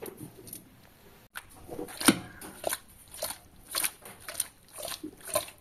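Small fish being mixed by hand with turmeric in a steel bowl: wet squishing sounds, about two a second, starting about a second in.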